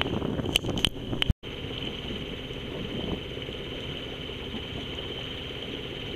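Wind and water noise on the microphone aboard a sailboat under way, with a few sharp clicks in the first second and a half. After a brief cut it becomes a steady rumble with a faint high whine.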